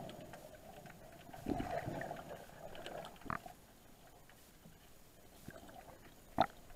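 Muffled underwater sound heard through a camera's waterproof housing: an uneven low water rumble with a few sharp clicks or knocks, the loudest one near the end.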